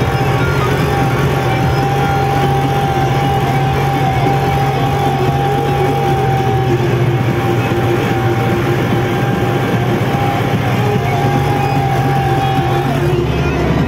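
Diesel tractor engine running steadily under load, heard from inside the cab, with a steady whining tone over it that stops near the end.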